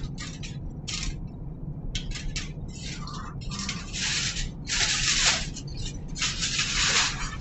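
Aluminium foil crinkling and rustling as it is pulled off a baking dish and crumpled, in a series of crackly bursts that are loudest in the second half.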